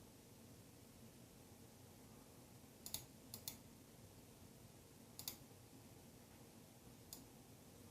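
A few faint, sharp computer clicks in a quiet room: two pairs about three seconds in, another pair after five seconds, and a single click near the end.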